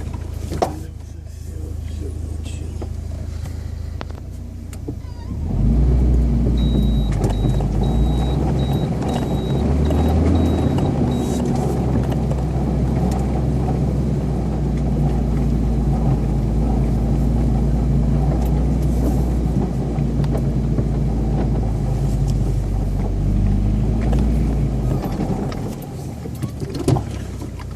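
UAZ Patriot engine running low, then rising about five seconds in to a loud, steady high-rev drone that holds for about twenty seconds before dropping back near the end. A faint high beep repeats for several seconds early in the drone.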